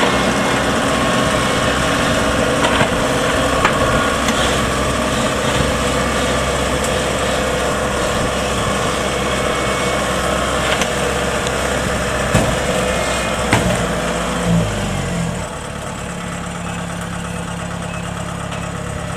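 A diesel engine runs steadily, with a few sharp metallic knocks. About fifteen seconds in it drops to a quieter, lower idle.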